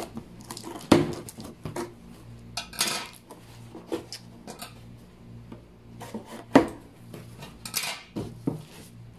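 Cardboard box of a kitchen mixer being opened by hand: flaps pulled back and the packed parts and foam inserts handled, giving scattered knocks, clicks and a few short rustling scrapes. A sharp knock comes about a second in, and the loudest one a little past six seconds.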